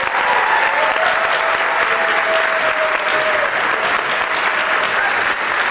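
Audience applauding steadily, with a few voices faintly audible in the crowd.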